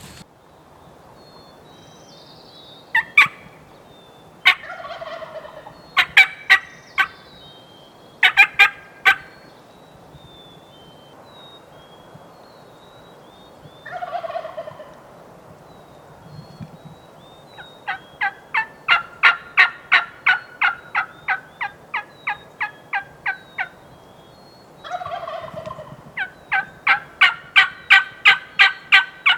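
Wild turkey gobbling three times, each a rattling call of about a second that falls in pitch, answering sharp single turkey notes and two long runs of loud, evenly spaced turkey yelps, each run about two and a half notes a second.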